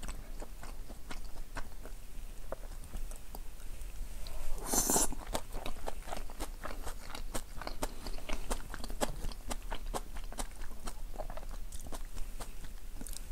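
A person chewing okonomiyaki close to a clip-on microphone, with many small wet mouth clicks. One louder rush of sound lasting about half a second comes about five seconds in.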